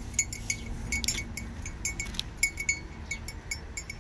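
Light metallic clinking with a short ringing tone, many quick irregular clinks: small bells on cows jostling as they feed at a trough.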